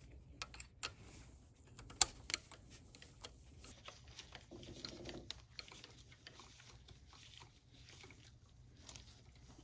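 Faint scattered clicks and light metal taps of a Torx driver on the high-pressure fuel pump's mounting bolts as they are turned by hand against the pump's spring pressure, over a low steady hum.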